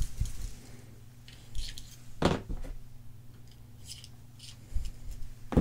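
A Swiss Army knife being handled, its tools and scales giving a few short sharp clicks, the loudest a little past two seconds in and near the end, over a faint steady low hum.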